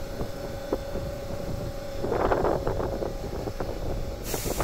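Electric train standing at a station platform: a steady hum with scattered clicks, a brief rush of noise about two seconds in, and a hiss that sets in near the end.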